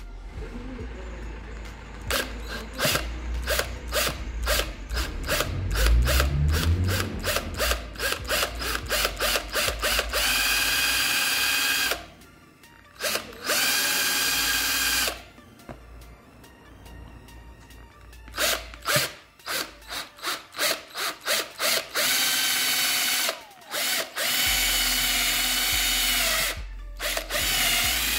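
Cordless drill drilling into a hard plastic trunk handle trim, run in many short trigger blips at first, then in longer steady spells with an even whine, and again in blips about two-thirds of the way through.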